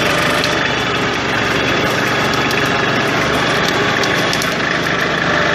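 Massey Ferguson 1433 compact tractor's diesel engine running steadily as the tractor drives over rough woodland ground, with a few light rattles.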